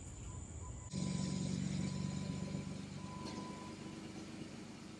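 Jeep Wrangler engine idling steadily, a low even hum that comes in suddenly about a second in.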